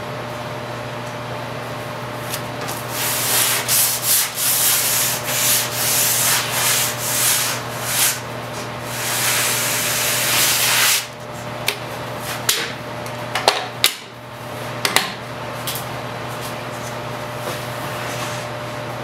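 Sandpaper rubbed by hand along the edge of a birch tongue-and-groove floorboard, in uneven strokes about one or two a second, ending in one longer stroke. About eleven seconds in, the rubbing stops and a few sharp light knocks of wood follow, over a steady low hum.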